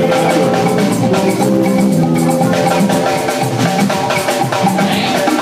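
Music with drums and percussion over a steady melodic line, playing without a break.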